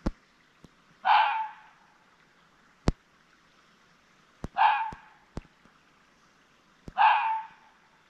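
An unidentified animal's loud screeching call, heard three times a few seconds apart, each a harsh half-second screech. Sharp clicks sound between the calls.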